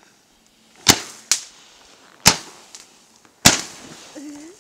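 Fireworks bursting: three loud bangs, roughly a second and a quarter apart, each fading in an echo, with a smaller crack just after the first.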